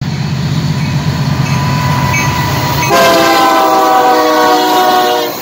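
Union Pacific diesel freight locomotive rumbling past. About three seconds in, its air horn sounds one long multi-tone chord that drifts slightly down in pitch as it passes, then stops just before the end.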